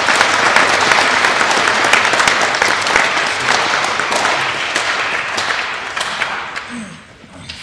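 Audience applauding in a gymnasium, a dense patter of clapping that dies away near the end.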